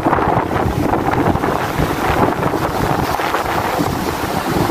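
Strong wind buffeting the microphone in a steady roar, with sea waves washing and splashing against a concrete breakwater.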